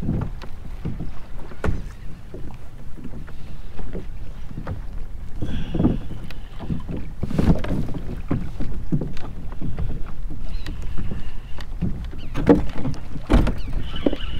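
Small waves slapping and knocking against a plastic fishing kayak's hull as it drifts, with wind on the microphone.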